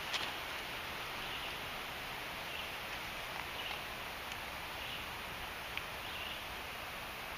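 Outdoor ambience in grass and woods: a steady hiss with faint, high, short chirps about once a second from small animals, and a few light clicks.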